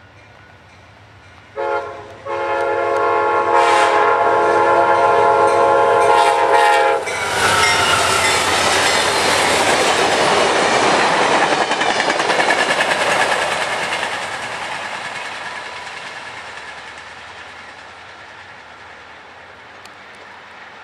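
Nathan Airchime K5LA five-chime locomotive horn on an Amtrak passenger train: a short blast, then a long blast of about five seconds whose chord sags slightly as it cuts off. The train then rushes past with wheels clacking over the rail joints, fading away.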